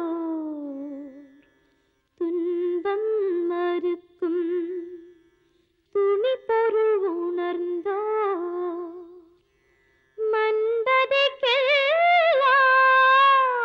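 A woman singing solo and unaccompanied, holding long wavering notes with ornaments. She sings in four phrases broken by short silences, and the last phrase is the loudest and highest.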